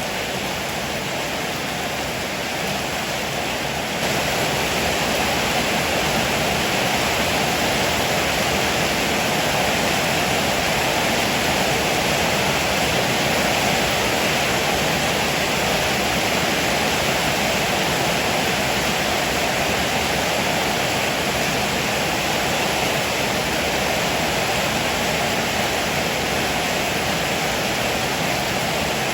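Heavy rain falling in a steady, dense hiss, which gets a little louder about four seconds in.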